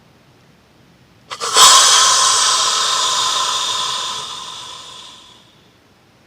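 Snort-wheeze blown on a hand-held deer call: two quick snort puffs about a second in, then a long hissing wheeze of about four seconds that tapers off. It imitates a mature buck's aggressive call, used late in the season to challenge rival bucks and draw them in to fight.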